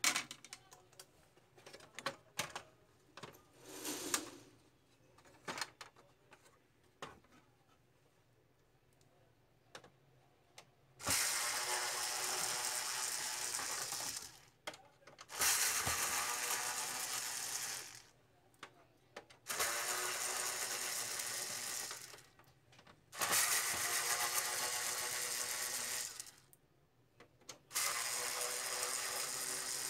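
Small clicks and knocks of parts being handled, then an HP LaserJet Pro M28a printer's drive motor and gear train whirring in five short runs of about three seconds each, with brief pauses between them.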